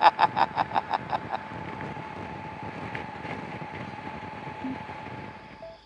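On-board wind rush and engine noise from a 2020 Honda Africa Twin Adventure Sports DCT cruising at highway speed. A rapid run of short pulses fades out in the first second and a half, and the steady riding noise cuts off just before the end.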